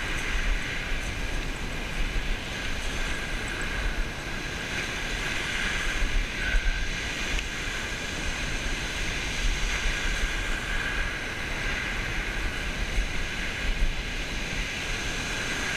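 Wind buffeting the microphone in a fluttering low rumble, over the steady wash of waves breaking on a shingle beach.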